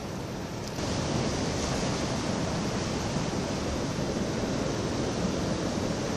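Steady rush of sea surf breaking on the breakwater rocks, mixed with wind. It steps up in level a little under a second in, then holds steady.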